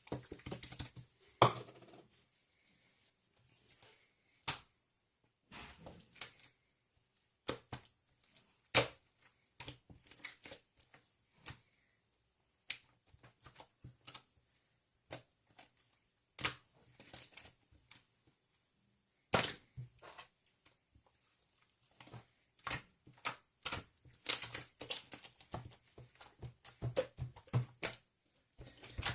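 Irregular sharp clicks and taps, some single and some in quick clusters, in a small room.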